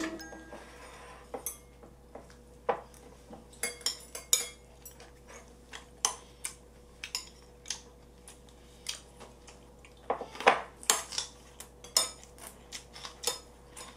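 Metal chopsticks clinking and scraping against ceramic bowls while food is picked up, in scattered, irregular clinks with a louder cluster about ten seconds in.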